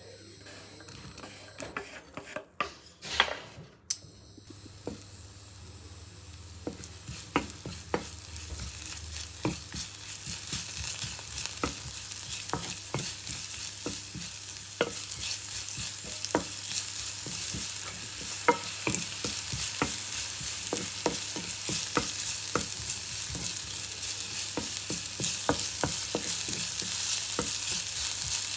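Stir-frying in a pan: hot oil sizzling, growing steadily louder, with frequent sharp taps and scrapes of a spatula against the pan, and a few louder clatters in the first few seconds.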